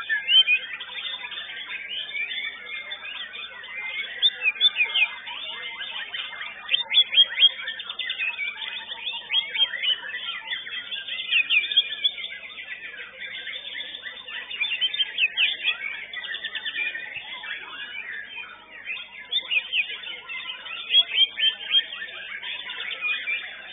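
White-rumped shama (murai batu) singing: loud, quick runs of sharp whistled notes in short bursts every few seconds, over a steady background of other birds singing.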